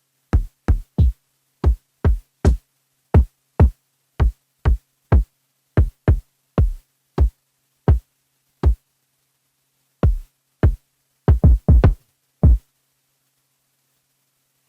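Electronic kick drum hits on the Akai Force, played one at a time from its pads in an uneven, unquantised rhythm. Each hit is deep and drops quickly in pitch. There are about twenty hits, with a fast flurry near the end before they stop.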